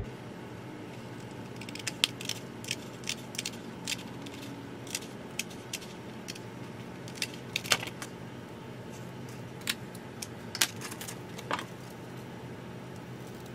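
Scissors cutting through a thin plastic sheet of polarizing film: a string of sharp, irregular snips and clicks.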